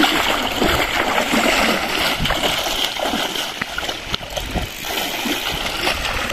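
Water splashing and sloshing, a run of many small irregular splashes.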